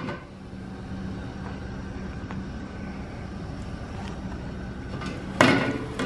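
Steady low hum and hiss from the stove and steaming stockpot, then one sharp metal clank of the stainless pot's lid being handled about five seconds in.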